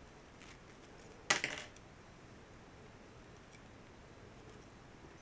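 A brief metallic clatter about a second in as large metal filigree earrings come out of a small organza jewelry pouch; otherwise only faint handling.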